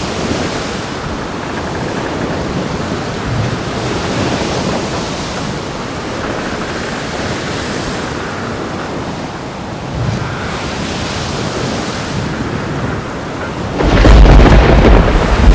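Storm sound effect: a steady rush of wind and surf, with a loud, low rumble of thunder near the end.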